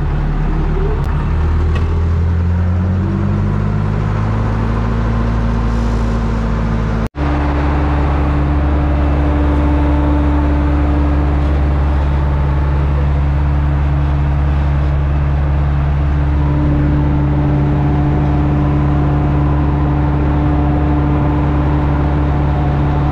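Massey Ferguson tractor engine, heard from the cab, pulling away with its note rising as it gathers speed, then running steadily at road speed while towing a boat trailer. There is a momentary break in the sound about seven seconds in.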